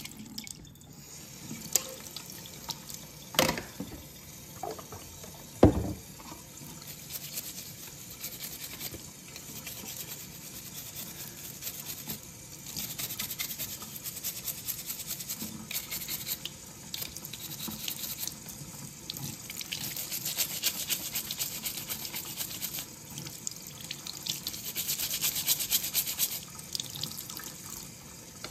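Kitchen tap running steadily into a sink while knife handle scales are scrubbed under the stream with a stiff-bristled dish brush, in stretches of fast scrubbing strokes. There are three sharp knocks in the first six seconds.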